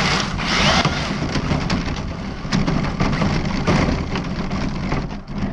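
Continuous gravel crunching and rattling under the tyres of an RC car running on a gravel road, dense with small clicks over a steady low rumble.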